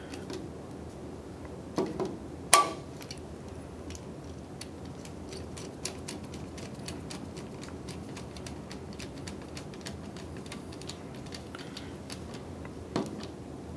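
Torque screwdriver tightening small mounting screws into a motor starter's thermal unit: a run of fine, quick ticks from the tool as it turns, with a couple of louder knocks about two seconds in and another near the end.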